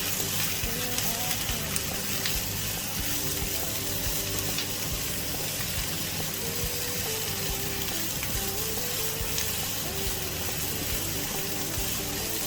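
Ginger, chili and onion sizzling steadily in hot oil as they are stir-fried for a stir-fried octopus dish, with faint background music.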